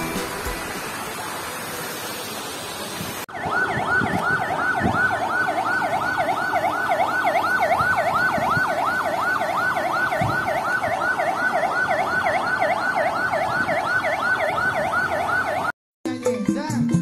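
Wave pool warning siren warbling fast, about four sweeps a second, signalling that the wave machine has started; it starts abruptly a few seconds in after a steady wash of noise and cuts off near the end.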